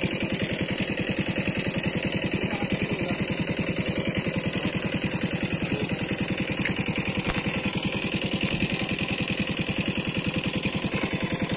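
A small engine running steadily at idle-like speed, with a rapid, even beat.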